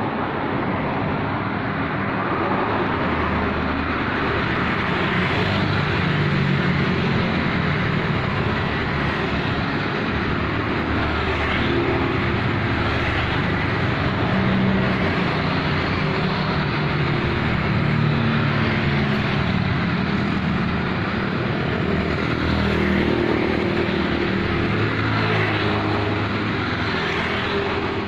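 Road traffic of cars and motorcycles passing one after another, engine notes coming and going without a break.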